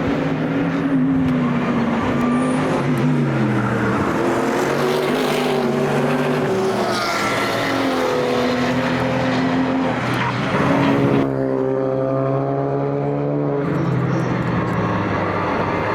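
Several race cars passing one after another, their engines overlapping and rising and falling in pitch as they lift, shift and accelerate. About eleven seconds in, one engine note stops abruptly and another climbs steadily for a couple of seconds.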